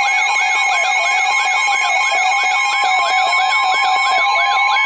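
Electronic emergency alert tones: a siren-like sweep that rises and falls about three times a second, layered over several steady high tones.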